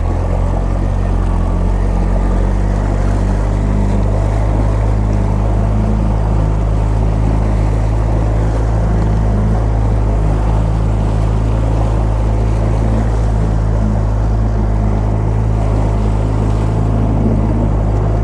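Boat's outboard motor running steadily under throttle, straining against a snagged crab-pot line to drag the pot free of the seabed. Water churns in the prop wash.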